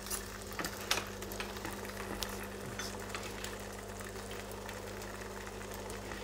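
Thin crepe-style pancake batter sizzling in a frying pan, over the steady hum of a cooker-hood extractor fan. A few small clicks come in the first second.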